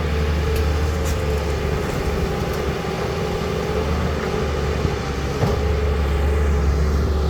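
Steady deep drone of heavy diesel earthmoving machinery, an excavator working with dump trucks. A few light clinks come in the first three seconds and a single knock about five and a half seconds in.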